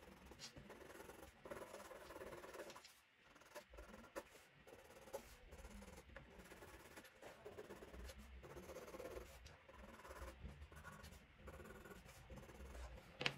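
Faint scratching of a white colored pencil drawn over paper in repeated strokes.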